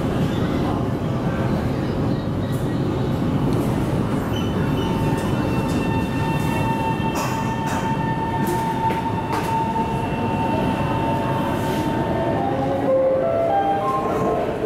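Hangzhou Metro Line 1 Type B train heard from inside the car as it pulls out of a station and runs into the tunnel, with a steady rumble of wheels on rail. From about four seconds in, a steady electric whine from the traction motors runs over the rumble. Near the end a few short stepped tones sound.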